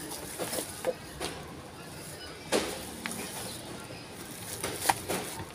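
Close eating sounds: a spoon scooping food out of a plastic bag, the bag crinkling, and chewing and lip smacks. There are sharp clicks about two and a half seconds in and again near the end.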